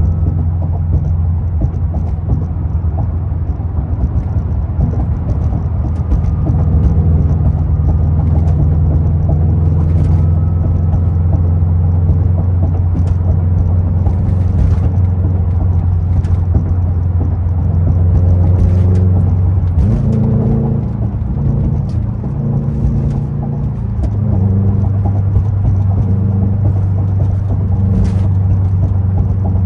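2021 Subaru WRX STI's turbocharged 2.5-litre flat-four running through an aftermarket Tomei exhaust while driving, a steady low drone. The engine note changes about twenty seconds in and settles back a few seconds later.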